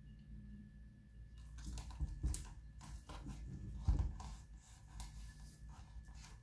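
Crackling and rustling of moss being pressed and worked by hand onto a bark orchid mount, with two louder knocks in the middle.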